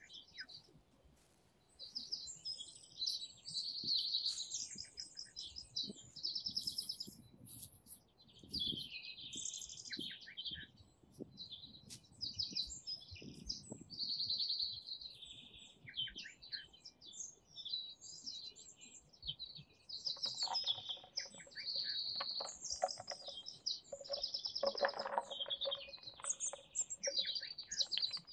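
Small songbirds chirping and trilling, many short high calls in quick overlapping series, with a lower buzzy sound joining in for the last several seconds.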